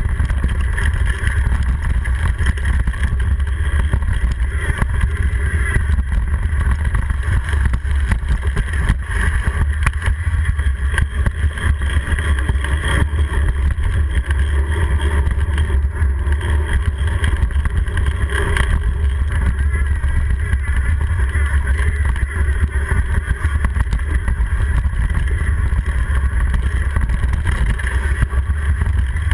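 Wind rushing over a GoPro camera's microphone as a mountain bike rolls fast along a dirt trail: a steady, heavy low rumble, with the bike and camera mount rattling in constant small knocks over roots and rocks.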